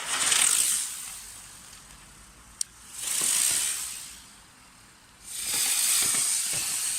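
Airplane-shaped toy firework spraying sparks in three loud hissing bursts, the last one longest, with a sharp pop between the first two.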